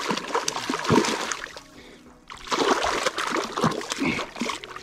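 A hooked trout thrashing and splashing in shallow water at the shore's edge, in two bouts with a short lull about two seconds in.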